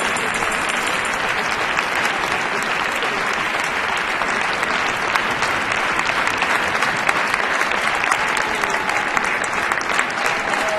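Large arena audience applauding: dense, steady clapping that holds at an even level throughout.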